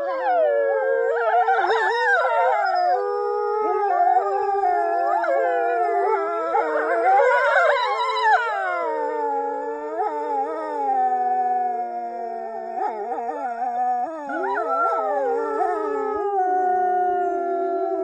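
Several wolves howling together in chorus: long, overlapping howls at different pitches, each gliding up and down.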